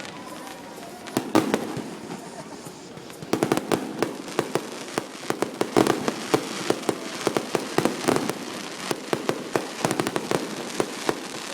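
Fireworks going off: a short cluster of pops about a second in, then a long, rapid, irregular string of sharp crackling bangs from about three seconds on.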